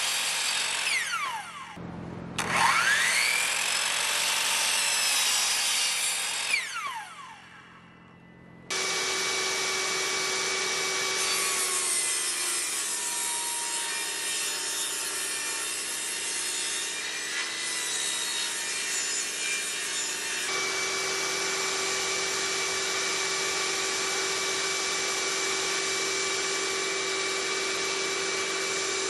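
Kobalt sliding miter saw cutting wood, its motor winding down in a falling whine after each cut. This happens twice, with an abrupt break between the takes. Then a portable table saw runs steadily as boards are cut.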